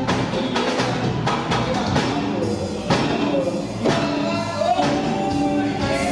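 Live band music: a singer over a steady drum beat, with the band playing along.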